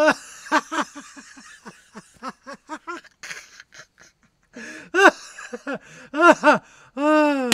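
A person laughing hard in quick runs of short 'ha' bursts, ending in one long falling cry, with splashing of mud in the first second or so.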